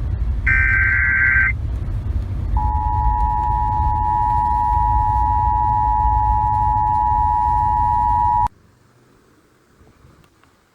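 Emergency Alert System signal: a brief burst of screeching digital header tones, then the steady two-tone attention signal for about six seconds over a low rumble of noise, cutting off suddenly.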